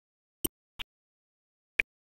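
Three short, sharp clicks at uneven spacing, with dead silence between them.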